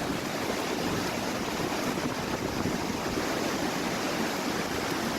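Steady rushing noise of a rainstorm, even and unbroken.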